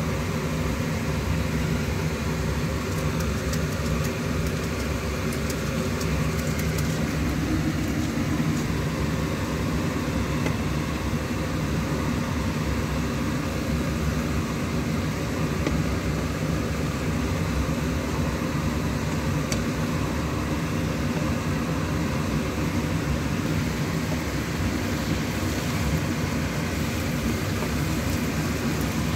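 A steady, loud, low mechanical drone, with mushrooms and chicken frying in a pan as they are stirred with a metal spoon and a wooden spatula.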